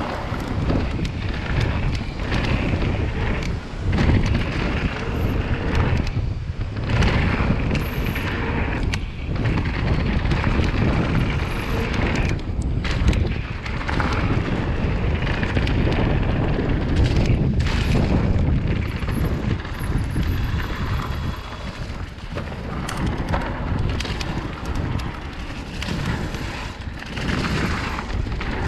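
Mountain bike riding fast down a packed dirt and gravel trail: wind buffeting the camera microphone over the tyres on dirt, with frequent knocks and rattles as the bike hits bumps.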